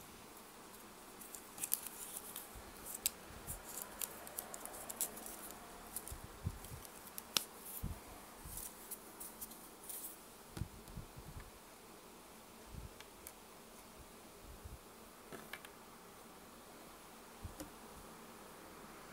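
Leather watch strap and buckle being handled and fastened on the wrist: faint scattered small clicks and rustles that thin out after about ten seconds.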